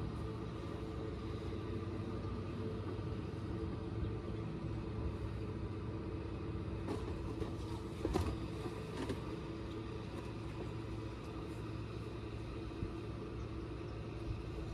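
Boat's outboard motor idling steadily with a low, even hum. A few light knocks about seven to nine seconds in.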